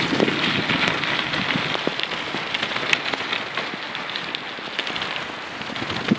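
Mountain bike tyres rolling fast over a gravel trail: a steady crunching hiss with many small stone clicks, and wind on the microphone.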